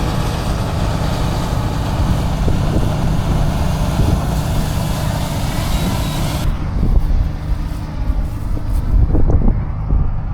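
Combine harvester running steadily with a heavy low engine rumble and a hiss of machinery; about two-thirds of the way through the high hiss cuts off abruptly, leaving the engine rumble.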